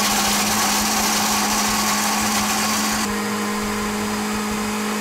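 Countertop blender chopping whole hazelnuts: a steady motor hum under the loud noise of the nuts being broken up. About three seconds in, the hiss eases and the motor note changes as the nuts are cut down to coarse pieces.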